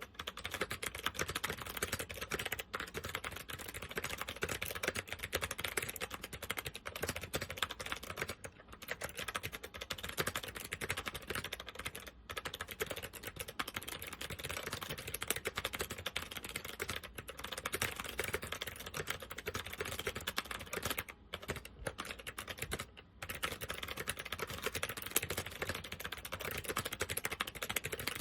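SMK 2269 keyboard with second-generation SMK clicky switches being typed on quickly and continuously, a dense run of sharp key clicks broken by a few short pauses. The switches are not in great condition and have not been cleaned.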